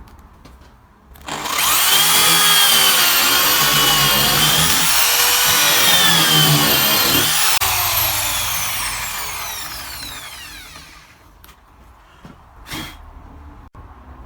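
Drill in a drill stand boring a 35 mm concealed-hinge cup hole into a cabinet door. The motor starts about a second in and runs under load for around six seconds. Then it is released and winds down with a falling whine over a few seconds. A short knock follows near the end.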